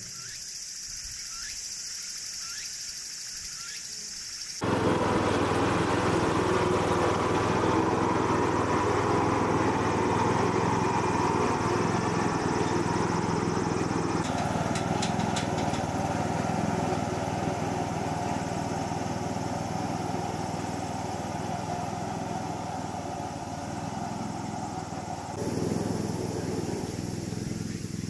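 A small engine running steadily. It comes in abruptly about four and a half seconds in, after a few seconds of a high insect-like hiss, and its tone shifts twice.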